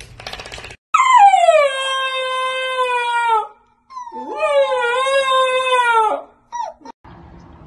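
Husky puppy howling: a long howl that falls in pitch, a second howl that rises and then wavers, and a short yelp near the end.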